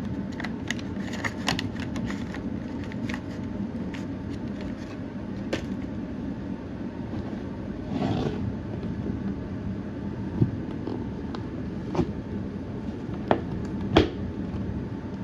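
Scattered clicks, taps and a brief rustle of plastic packaging being handled while a model locomotive is unpacked, over a steady low hum.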